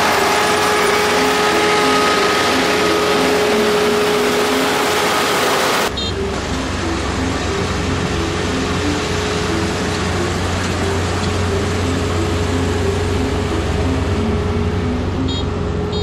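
Kubota combine harvester running steadily while cutting rice. About six seconds in the sound changes abruptly: the high hiss drops away and a deeper low rumble takes over.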